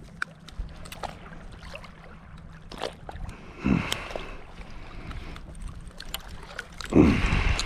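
Water and wind noise around a fishing boat on open water, with scattered small clicks and two louder sloshing bursts, about four and seven seconds in.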